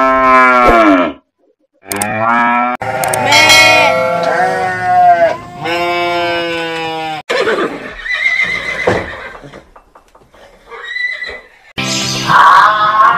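Series of livestock calls in turn: the end of a cow's moo, then other farm-animal calls, some pitched and bending, some rougher, with short pauses between them.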